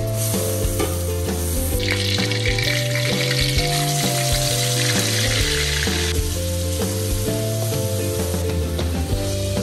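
Food sizzling as it fries in oil in a pan, with a utensil clicking and scraping as it is stirred. The sizzle grows louder about two seconds in and eases off around six seconds. Background music plays throughout.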